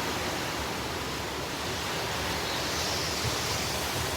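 Steady rushing noise of hurricane wind, with a dull thump at the very end.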